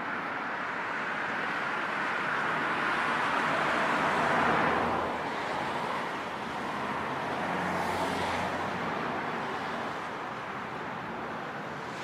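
Road traffic noise: a steady hiss of tyres and engines that swells as a vehicle passes about four seconds in and again about eight seconds in.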